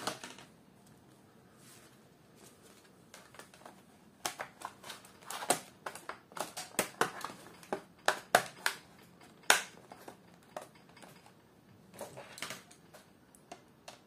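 Plastic bottom access cover of a Lenovo ThinkPad W540 being fitted back onto the laptop and pressed down into its clips: a scatter of sharp clicks and taps after a few quiet seconds, the loudest about nine and a half seconds in.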